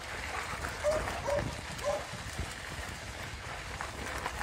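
Three short animal calls about half a second apart, over a steady low rumble.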